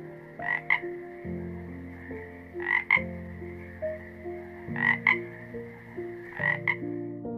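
Animal calls: short croaks in pairs, a pair about every two seconds, over a steady high hum, with melodic background notes beneath.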